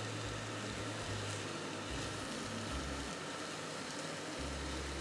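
Diced pumpkin, mushrooms, bacon and onion frying in olive oil in a pan, a steady sizzle as they are stirred with a spatula.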